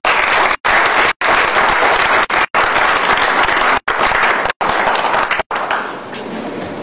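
Small audience applauding after a reading, dying away near the end, broken by several brief dropouts in the audio.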